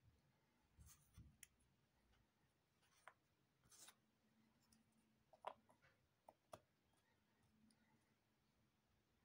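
Faint scattered clicks and light taps of cardboard jigsaw puzzle pieces being handled and set into place, the sharpest click about five and a half seconds in, over a quiet room hiss.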